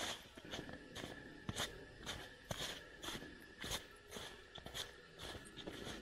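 Footsteps crunching in snow at a steady walking pace, about two steps a second.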